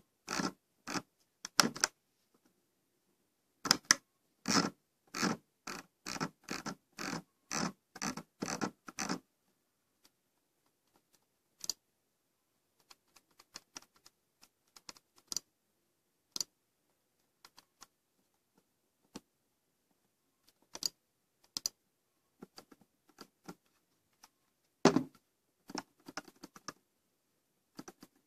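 Logitech G700s mouse clicking and knocking: a run of sharp clicks about two a second, then sparse faint ticks, then another loud cluster near the end. The sounds come from a scroll wheel that knocks and a left button with play, faults of the brand-new mouse.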